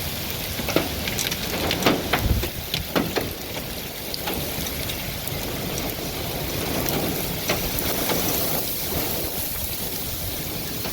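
Heavy thunderstorm rain pouring down, with sharp clicks of drops striking a hard surface, thickest in the first few seconds.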